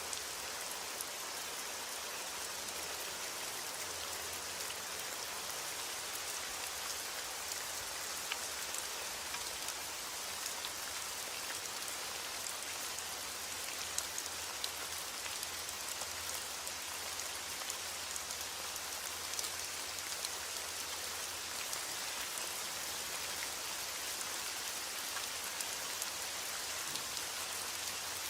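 Steady rain falling, a continuous hiss with scattered ticks of individual drops.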